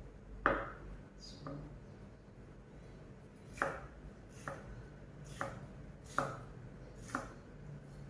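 Kitchen knife slicing yellow capsicum on a cutting board: about seven sharp knocks of the blade on the board, roughly one a second, the first the loudest.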